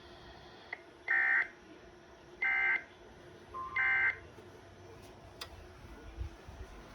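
NOAA Weather Radio SAME end-of-message code: three short, buzzy digital data bursts, each about a third of a second long and spaced about a second apart, over faint radio hiss. The three bursts signal that the alert message has ended.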